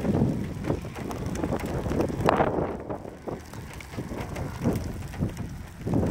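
Gusty storm wind buffeting the microphone, rising and falling in strength, with scattered small clicks through it.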